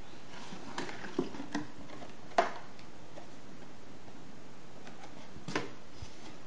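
Cardboard box and its insert handled by hand: a few soft rustles and taps, the sharpest click about two and a half seconds in and another about five and a half seconds in, over a steady hiss.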